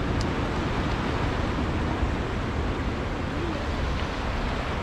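Sea surf breaking on the rocks of a breakwater, a steady rush of noise with a deep low rumble.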